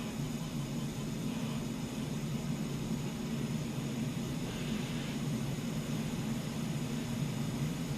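Steady radio static from an off-air station: a low hum with hiss over it and no programme audio, the station having lost power.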